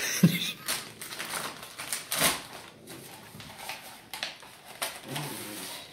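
A sealed plastic DNA sampling kit bag being pulled open by hand: irregular crinkling and crackling of the plastic packaging, with the loudest crackle about two seconds in.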